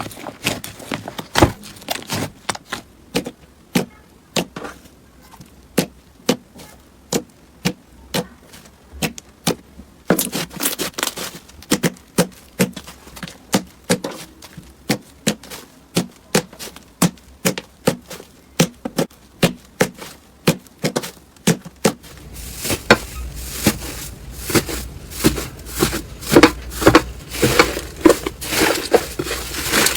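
Slime being squeezed and poked by hand, making a quick run of sharp pops and crackles. The sound changes character about a third of the way in and again about two-thirds in, becoming denser and fuller near the end.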